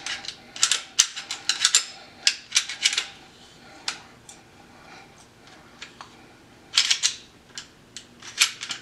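Smith & Wesson M&P Shield pistol being disassembled by hand: a series of sharp metallic clicks and snaps in quick clusters, with a quieter stretch of a couple of seconds in the middle.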